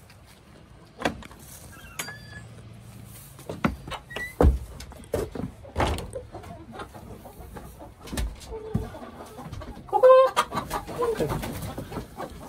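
Chickens clucking inside a wooden coop, with a louder call near the end. Sharp knocks and clatter from the coop's wooden door and latch being opened and someone moving about inside.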